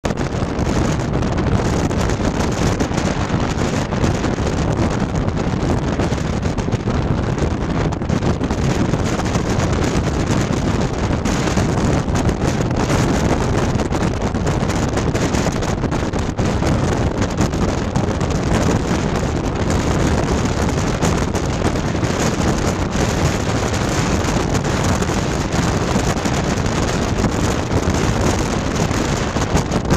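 Steady rumble of a moving car with wind buffeting the microphone.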